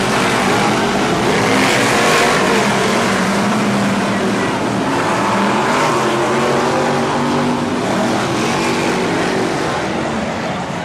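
A pack of BriSCA F1 stock cars' V8 engines racing, loud and continuous, their pitch rising and falling as the cars power through the turns.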